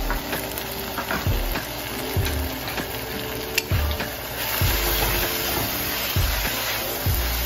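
Vegetables sizzling in a hot wok while a wooden spatula stirs and scrapes them, with a few sharp clicks; the sizzle grows louder a little past halfway as the stirring gets going. Background music with a steady beat plays throughout.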